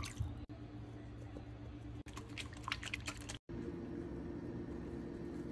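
Faint kitchen handling sounds over a steady low hum: light clicks against a glass bowl, with a quick run of sharp clicks a little past halfway, then soft wet sounds of bread being pressed into a liquid mixture.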